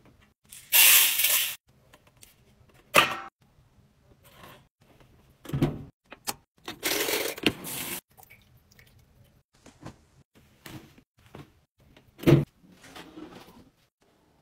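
Laundry being handled at a top-loading washing machine: two longer bursts of rustling hiss, a few knocks, and a sharp thump about twelve seconds in.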